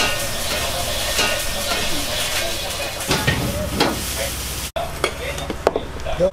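Fried rice sizzling in a wok, with the cook's ladle scraping and knocking against the pan. About three-quarters of the way through it cuts off suddenly, leaving a quieter stretch with a few light knocks and clinks as a bowl is set on the counter.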